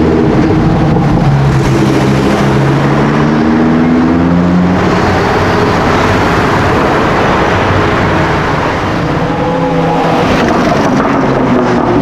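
A performance car's engine and exhaust under hard acceleration, the pitch climbing and dropping back at gear changes, loud and rough in the middle, then climbing again near the end.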